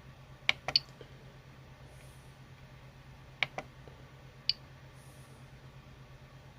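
3D printer (Prusa i3 MK3S) working, with a faint steady hum under sharp clicks: three in quick succession about half a second in, two more around three and a half seconds, and a single one about a second later.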